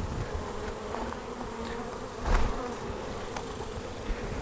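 Honey bees buzzing steadily around an open hive, with a few light wooden clicks and one louder knock about two and a half seconds in as a frame is worked out of the box.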